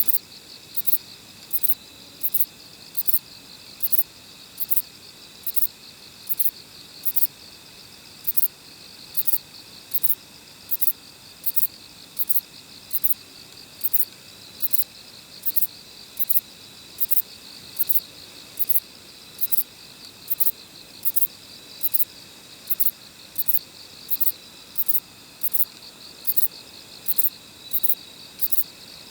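Kobane-himegisu (Chizuella bonneti), a short-winged katydid, singing: a short, very high chirp repeated steadily about one and a half times a second. A steady, fainter, lower trill runs underneath.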